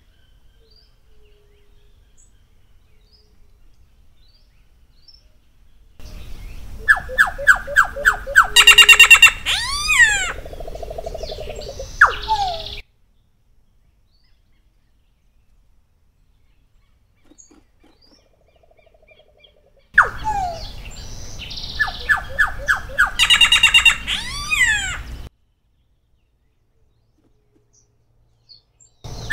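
Solitary black cacique singing two bouts a few seconds apart, starting about six and about twenty seconds in. Each bout runs about six seconds and mixes rapid clicks and ticks with rising and falling whistled notes.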